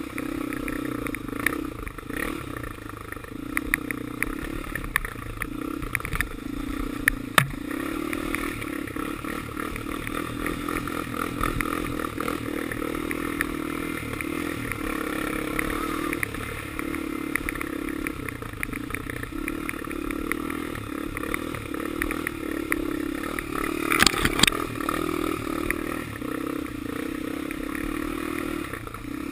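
Honda 400EX quad's air-cooled single-cylinder four-stroke engine running while being ridden, its note rising and falling with the throttle, with rattles and knocks from rough ground; a sharp knock about seven seconds in and a louder run of knocks about five seconds before the end.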